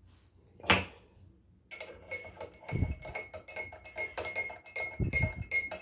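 Metal spoon stirring tea in a glass, clinking quickly and repeatedly against the sides with a ringing tone, starting about two seconds in, with a couple of low knocks.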